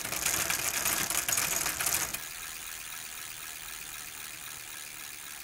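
Logo-reveal intro sound effect: a loud, dense, crackling rattle for about two seconds, then a quieter steady hiss.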